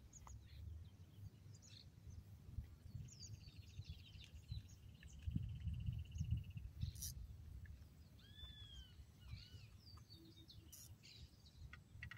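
Birds calling at a lakeside: a short rattling trill, then a couple of arching whistled calls about two-thirds of the way through, with scattered chirps. Under them runs a low, uneven rumble of wind on the microphone, and a few faint clicks.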